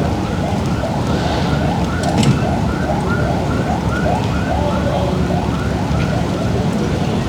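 Emergency-vehicle siren on a fast rising-and-falling yelp, about two sweeps a second, stopping near the end. Steady rain and street noise run underneath.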